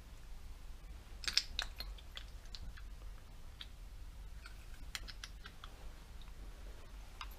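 Small clicks and taps of parts and tools being handled on a workbench, in irregular clusters, over a low steady hum.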